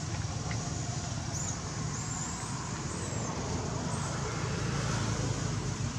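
Steady low outdoor rumble, of the kind distant road traffic makes, with a few faint high chirps over the middle of the stretch.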